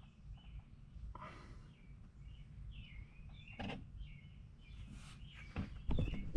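Faint bird chirping over quiet room tone, with a few soft knocks and glugs as motor oil is poured from a plastic jug into a funnel, and a louder clatter near the end as the jug is moved.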